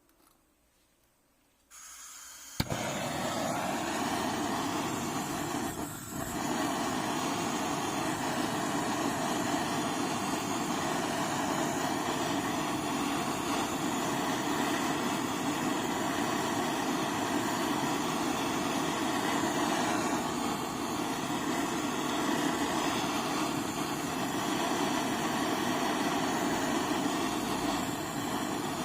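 Steady, even machine noise, like a motor-driven blower, that switches on suddenly about two and a half seconds in after near silence and then runs without change.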